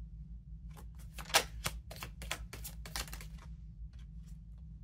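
Oracle cards being shuffled and handled, a quick irregular run of sharp clicks and snaps for about three seconds, then a few fainter ones, over a low steady hum.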